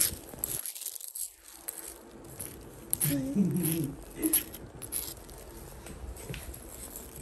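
Scattered light clicks and taps of spoons, cups and eggs being handled at a table, with a brief low voice about three seconds in.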